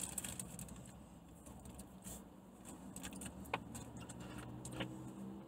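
Faint handling and rustling, then two sharp clicks about a second apart as a plastic water bottle is picked up and its cap twisted, over a low steady hum.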